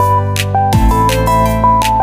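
Electronic background music: synthesizer notes over a heavy bass line, with a falling bass sweep and percussive hits on a steady beat.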